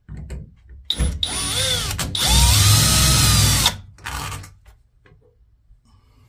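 Power drill with a Phillips bit backing out a screw that holds a shower valve's trim plate, running in two runs of about a second each, its motor pitch rising as it speeds up, with light handling noise after.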